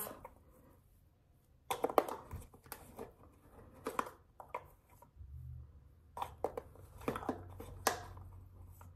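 Light kitchen handling noises: a measuring spoon and spice containers clicking and rustling in short, scattered bursts as dry seasonings are measured into a bowl. A faint low hum comes in about halfway through.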